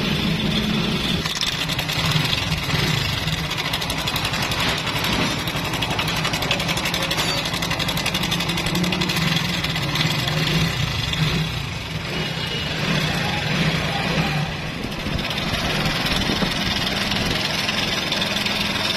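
Honda Pridor motorcycle's single-cylinder four-stroke engine idling steadily with a fast, dense rattle: the noise of a very loose timing chain, traced to a broken small cam-chain sprocket.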